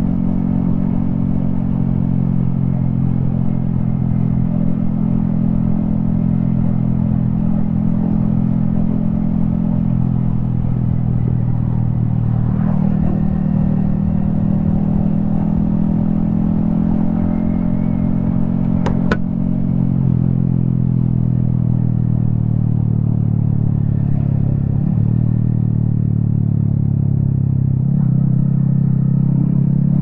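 Yamaha XSR155's single-cylinder 155 cc engine running steadily under way, heard from the rider's helmet, its note dropping and picking up again a few times as the throttle changes. A sharp click about two-thirds of the way through.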